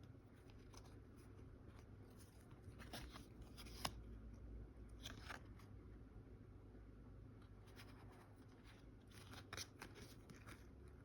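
Faint rustling and crinkling of a Panini Donruss basketball card pack and its cards being handled, in short scattered bursts, with one sharp click about four seconds in.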